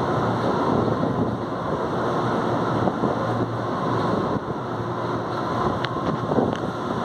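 Steady roar of the ambience on an underground metro platform with no train in the station, with a couple of faint clicks near the end.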